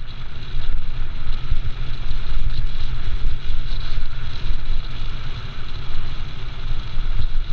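Mountain cart rolling fast down a gravel road: a steady loud rumble of the tyres on gravel with many small jolts, and wind buffeting. The sound is muffled by the GoPro's waterproof housing.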